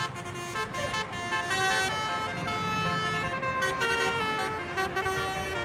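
Indonesian telolet bus horn, a basuri-style multi-tone air horn, playing a tune of held notes that change pitch in steps.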